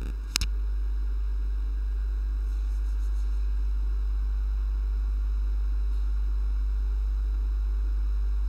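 Steady low electrical hum on the microphone feed, with a single sharp click just under half a second in.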